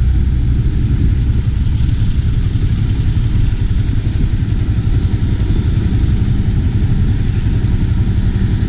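Yamaha Y15ZR's 150cc single-cylinder four-stroke engine idling steadily, with a low, even rumble.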